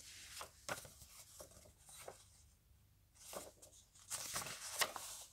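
Faint rustles and short scrapes of a comic book's paper cover and pages being handled and turned, becoming busier and louder about three seconds in.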